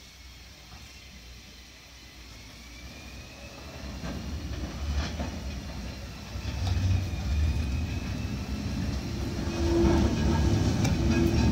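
Historic articulated tram rolling slowly toward the listener over depot tracks and points, its wheels rumbling and knocking on the rail joints. The sound grows steadily louder as it approaches, with a faint high whine running through it.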